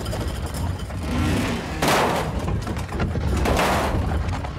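Cartoon sound effect of a house being dragged across the ground: a steady low rumble of scraping and grinding, with two louder crunching surges, about two seconds in and about three and a half seconds in.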